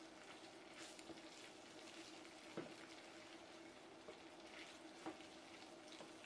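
Faint sizzle of cubed chicken frying in a pan while it is stirred with a wooden spatula, with a couple of soft knocks of the spatula against the pan and a faint steady hum.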